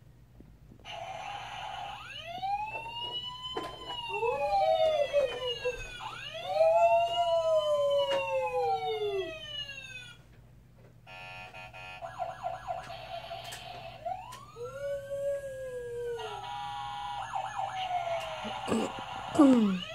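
Electronic siren sounds from battery-powered toy fire trucks, several wailing at once in overlapping rising and falling sweeps, with a short break about halfway through.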